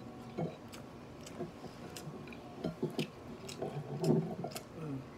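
A person chewing a mouthful of rice and fried pork with the mouth closed, with scattered light clicks, busiest in the second half.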